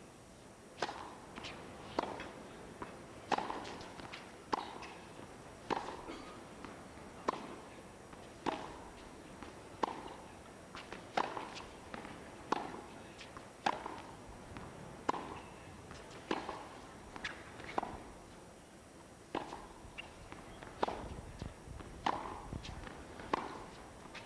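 Tennis ball struck back and forth by rackets in a long baseline rally on a hard court, a sharp pock about every second and a quarter with fainter ball bounces between. There is a brief pause about three quarters of the way through before the hitting starts again.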